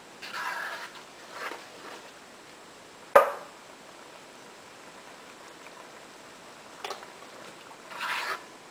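Spoon stirring beans in thick coconut milk in an aluminium pot: short wet scraping swishes, with a sharp knock about three seconds in and a lighter click near the end.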